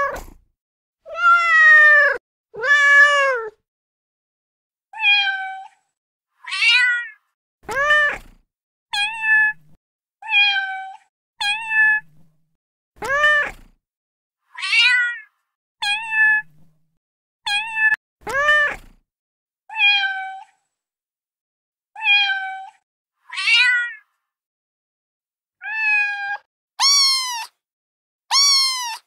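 About twenty separate recorded cat and kitten meows played back one after another from a cat-sounds phone app. Each is a short call under a second long with its own pitch and shape, some rising then falling, and there is dead silence between them.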